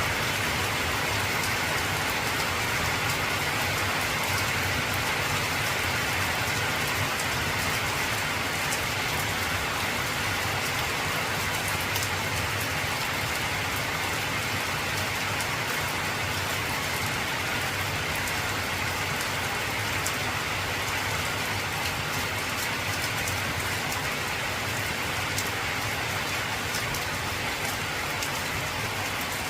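Heavy rain falling steadily on an old corrugated zinc roof: a constant hiss with scattered sharp ticks of single drops.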